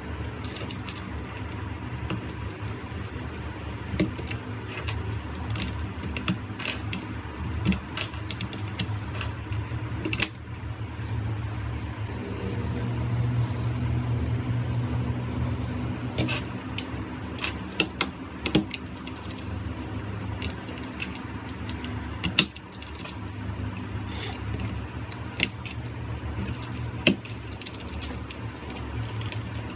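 Irregular sharp plastic clicks and clacks from a Keychron K3's low-profile optical switches and keycaps being handled, a few at a time with pauses between, over a steady low background hum.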